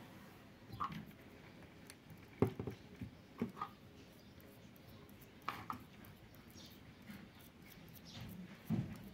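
Small scattered knocks and clicks of a cream jar and its plastic screw lid being handled and set down on a tabletop, about half a dozen in all, the loudest about two and a half seconds in.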